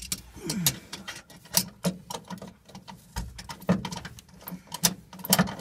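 Irregular metallic clicks and taps, several a second, from an 11/16 open-end wrench turning and re-seating on the Timbren bump stop's mounting bolt as it is run tight.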